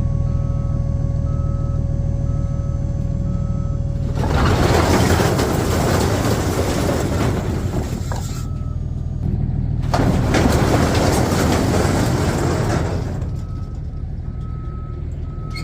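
Heavy vehicle's engine running with a reversing alarm beeping about once a second. Twice the beeping gives way to a loud rushing noise lasting a few seconds, and the beeping resumes near the end.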